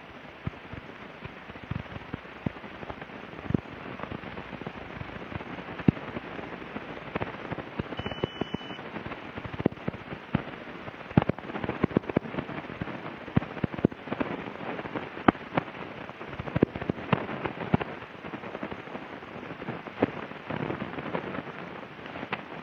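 Rain pattering steadily, with many irregular sharp drop ticks that grow denser in the second half.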